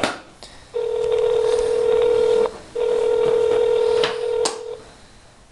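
Telephone ringback tone from a mobile phone's speaker: two long steady tones of about two seconds each, with a short break between, while the dialled number rings. A brief handling bump comes right at the start.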